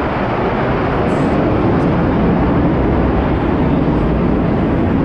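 Loud, steady noise of an aircraft flying overhead, heard from inside an exhibition marquee, swelling slightly about a second in.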